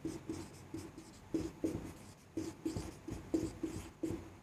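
Marker pen writing on a whiteboard: a quick, irregular run of short strokes.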